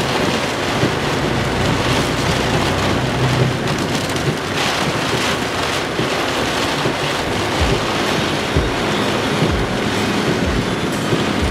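Rain hitting a car's windshield and roof, heard from inside the moving car along with steady tyre and road noise on a wet road. A few low thumps come in the second half.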